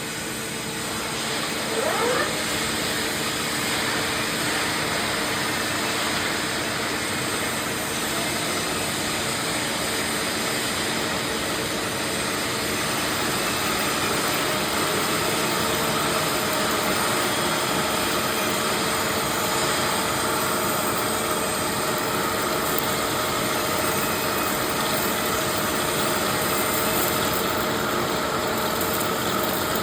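CNC drilling machine running steadily: a continuous mechanical noise with several steady motor tones, and a brief rising whine about two seconds in.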